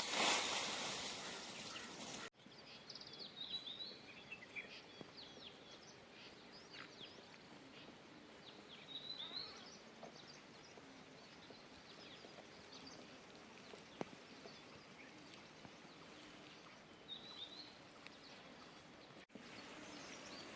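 Birds chirping faintly, a few short calls at intervals over a quiet outdoor background, after a brief loud rush of noise at the very start.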